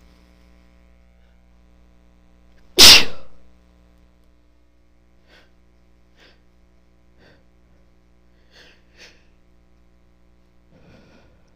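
A woman sneezes once, loudly and suddenly, about three seconds in. A few faint, short noises follow.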